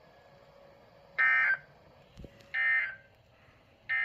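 Emergency Alert System end-of-message signal: three short bursts of two-tone SAME digital data, about a second and a half apart, marking the end of the alert.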